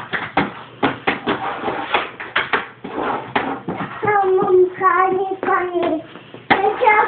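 A young girl singing a simple tune in long held notes, starting about halfway through. Before it, a quick, uneven run of light knocks and taps.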